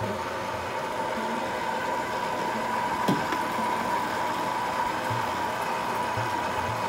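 Electric dough-kneading machine running steadily with a whine, kneading wheat flour and water into chapati dough. A single short knock about three seconds in.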